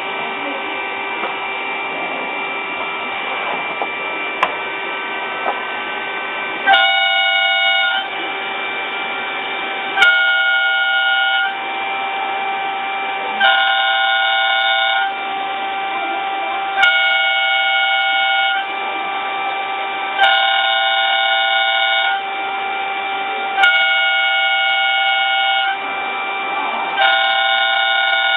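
Mini 5-axis CNC router spindle running with a steady whine while it machines an impeller. From about seven seconds in, a louder, richer whine sounds for about a second and a half roughly every three and a half seconds, as the cutter takes repeated passes.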